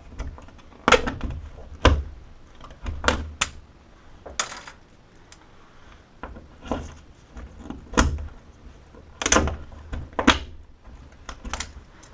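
Irregular sharp clicks and knocks, about a dozen of them, from handling and fitting Snap Toggle drywall anchors at the wall.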